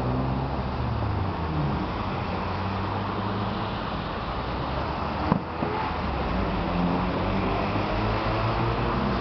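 Steady outdoor city din with the low hum of running engines, and one sharp crack about five seconds in.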